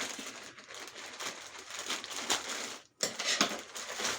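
Parcel packaging crinkling and rustling in quick irregular crackles as it is handled and opened by hand, with a brief pause about three seconds in.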